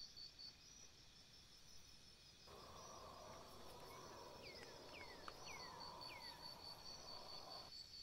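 Faint, steady, high-pitched pulsing of a cricket or other insect. About halfway through, a small bird gives four short chirps, each falling in pitch.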